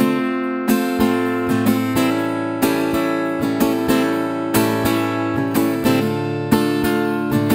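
Solo acoustic guitar playing an instrumental intro: ringing chords picked in a steady rhythm, about two to three attacks a second.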